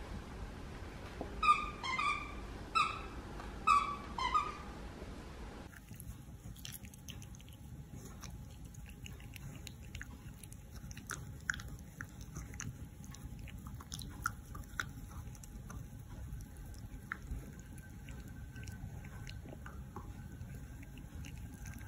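About five short, high squeaks in quick succession during the first five seconds. Then a Bernedoodle puppy chews, with scattered soft clicks and smacks of its mouth.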